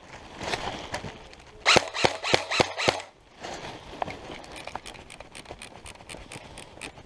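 Airsoft guns firing: a quick string of about six sharp shots about two seconds in, then many fainter shots from other guns further off in the second half.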